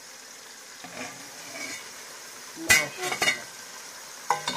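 Sliced onions frying in hot oil in a large aluminium pan, a steady sizzle. Three sharp metal clatters sound against the pan in the second half as the onions are stirred.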